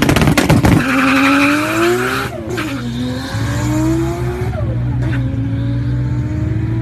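Nissan GT-R accelerating hard. A sharp crackling of pops comes at the launch, then the engine rises in pitch through the gears with tyres squealing, shifting about two seconds in and again near five seconds.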